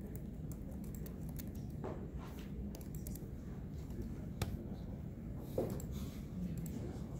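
Typing on a computer keyboard: scattered key clicks, thickest in the first few seconds and sparser later, over a steady low room hum.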